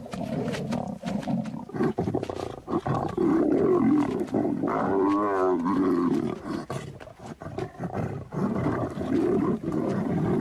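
Lions snarling and growling as they squabble over a carcass, with a longer, wavering snarl about halfway through.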